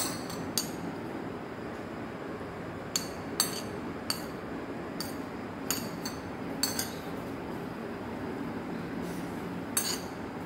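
Scattered light clinks, about ten spread over several seconds, of a utensil touching a glass serving platter while candied fruit pieces are placed on the rice. A steady low hum runs underneath.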